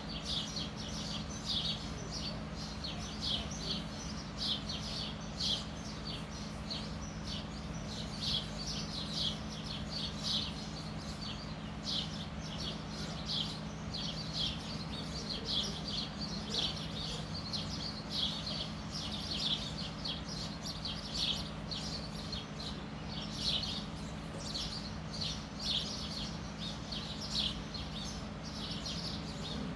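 Birds chirping constantly, several quick high chirps a second, over a steady low hum.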